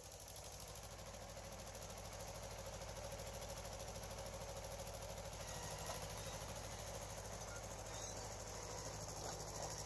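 Small 1990 crawler dozer's two-cylinder diesel engine running steadily with a fast, even knocking beat, working as the dozer pushes gravel and raises its blade. The sound grows louder over the first couple of seconds.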